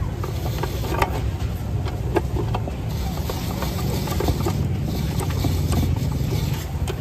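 Busy street-market ambience carried by a steady low engine hum, with scattered clicks and clatter over it.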